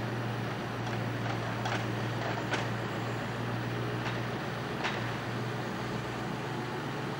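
Scania timber truck's diesel engine running steadily while its loader crane works, with a few sharp metallic knocks from the crane.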